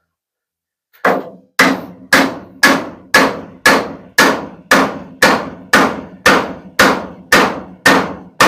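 Hammer blows driving a roost bar into a tight fit: about fifteen steady strikes, roughly two a second, starting about a second in.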